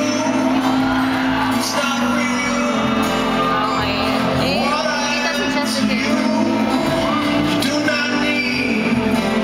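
Live pop music: singing over acoustic guitar and a full band, heard from the audience in a large arena, with whoops from the crowd.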